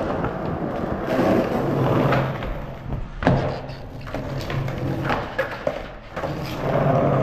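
Skateboard wheels rolling on a concrete floor with a steady rumble, and a few sharp clacks of the board, the loudest about three seconds in.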